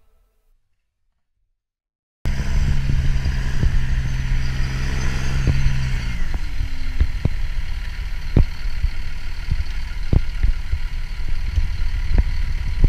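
Silence for about two seconds, then a tracked snowcat's engine running with a steady low hum that drops in pitch about halfway through, joined by scattered sharp knocks and clunks.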